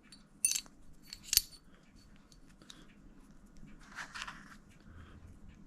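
Small steel parts of an AR-15 bolt carrier group clicking together as the firing pin is slid into the carrier: two sharp metal clicks about a second apart, then a brief scrape about four seconds in.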